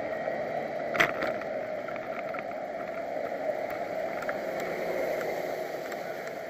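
Steady rush of riding wind and city street traffic picked up by a camera on a moving bicycle, with a sharp knock about a second in.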